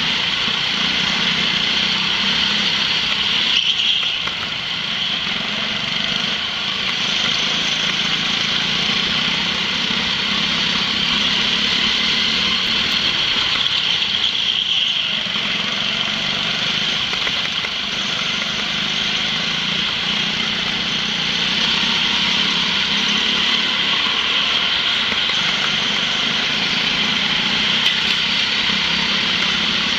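Go-kart engine running continuously, heard from on board while lapping the track. The note drops briefly twice, about 4 and 15 seconds in.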